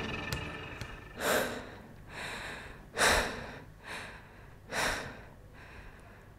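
A person breathing hard: heavy, gasping breaths in and out, about seven in all, louder and softer in turn, just under a second apart.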